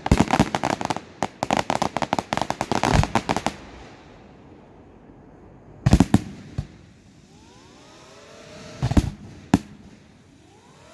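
Fireworks display: a dense volley of rapid bangs and crackling for the first three seconds or so, then a few single loud bangs spaced seconds apart, with faint rising and falling whistles between the last of them.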